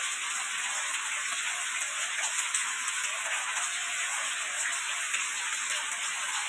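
Steady rain falling, a dense even hiss with many small drops pattering through it.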